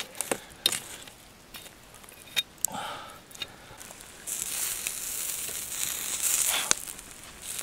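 Veal kebabs and vegetables sizzling in a wire grill basket over wood coals, with scattered light clicks and crackles. A louder high hiss of sizzling swells about four seconds in and fades shortly before the end.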